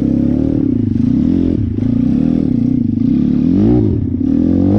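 YX 150 pit bike's single-cylinder four-stroke engine under way, its revs rising and falling with the throttle, with a sharper rev about three and a half seconds in.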